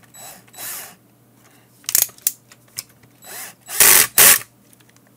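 Cordless drill-driver driving a self-tapping screw into the multimeter's plastic case in several short bursts, the two loudest about four seconds in.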